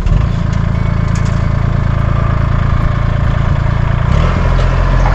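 Small farm tractor engine running close by at a steady speed, its note shifting about four seconds in as the load or throttle changes.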